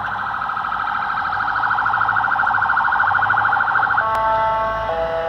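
Ambulance electronic siren sounding a very fast warble, then switching about four seconds in to a two-tone hi-lo pattern, one high note then one low note, each held about a second.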